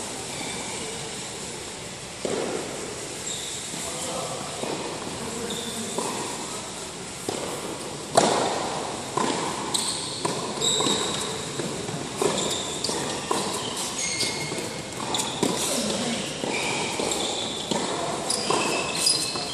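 Tennis played on an indoor hard court: racket strikes and ball bounces that echo in the hall, the hardest hit about eight seconds in and more frequent hits after that, with short high squeaks of sneakers on the court surface.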